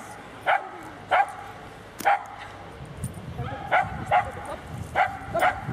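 A dog barking repeatedly in short barks, about seven in all, roughly one a second.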